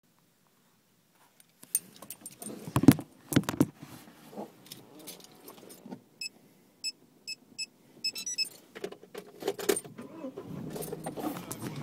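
Keys jangling and knocks and rattles of settling into a car, the loudest knock about three seconds in. Around the middle comes a run of about five short electronic warning beeps from the car, and near the end a low steady hum sets in.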